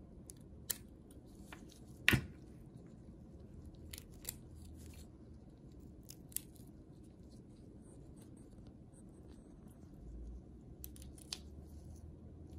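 Scissors snipping through a crayfish's hard chitin exoskeleton: irregular crisp snips and crunches spaced a second or more apart, the loudest about two seconds in.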